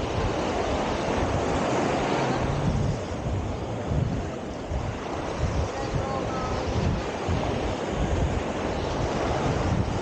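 Wind buffeting the microphone in irregular gusts over a steady wash of ocean surf.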